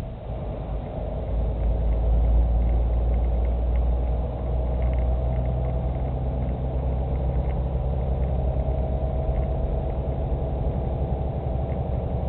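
Engine and road noise of a moving vehicle heard from inside the cab: a steady low rumble that swells a second or so in and then settles.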